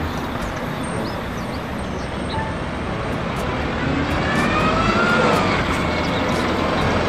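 Single-deck city bus driving through a junction with road traffic: steady engine and tyre noise that grows a little louder about four seconds in as the bus passes close, with a faint whine rising and falling at the same time.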